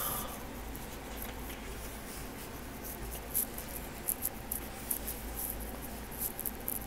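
Soft rustling and scattered light ticks of thick, glossy photobook pages being handled and turned by hand, over a faint steady low hum.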